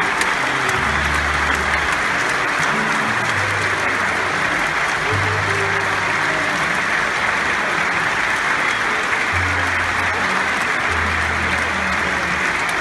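Large theatre audience applauding, dense and steady clapping. Low held tones come and go underneath, each lasting under a second.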